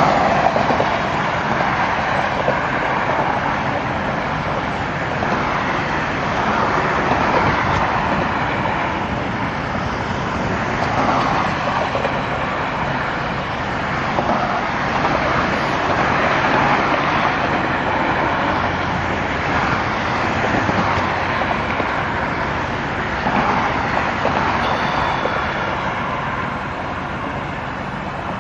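A steady engine hum mixed with road traffic noise that swells and fades every few seconds.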